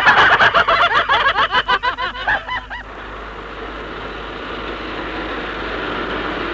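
A group of cartoon voices laughing in quick, high-pitched bursts, breaking off about three seconds in. Then a steady hum of car engines from passing traffic, slowly growing louder.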